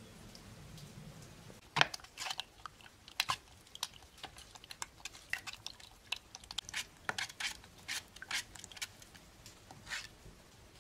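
Wooden spoon stirring and pushing beaten eggs through a wooden-rimmed mesh sieve, making irregular wet clicks and scrapes, several a second, that start about two seconds in. The eggs are being strained to remove the chalazae.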